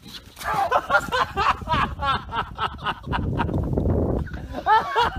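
People's voices exclaiming loudly without clear words, in short high-pitched calls. About three seconds in they give way to a stretch of low, dull noise, and the calls come back near the end.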